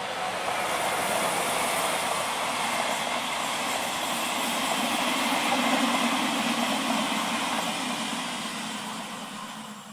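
ÖBB Railjet passenger coaches passing: a steady rumble and rush of wheels on rails. It builds to its loudest a little past the middle, then dies away near the end as the last coach goes by.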